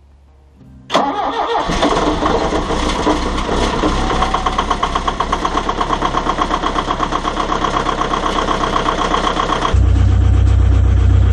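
Volvo EC140 excavator's diesel engine starting: a click about a second in, a brief crank, then it catches and runs with a fast, even pulse. This is the first start after the radiator, oil cooler, belts and cooling fan hub were reinstalled. Near the end it turns to a loud low hum as heard from inside the cab.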